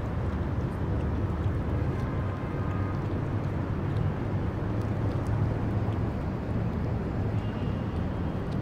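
Steady low outdoor rumble with a few faint small clicks.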